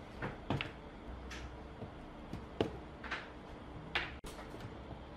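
Control knobs being worked and pulled off the splined volume and bass shafts of an old speaker: a few irregular clicks and scrapes, the loudest a little over two and a half seconds in and another about four seconds in.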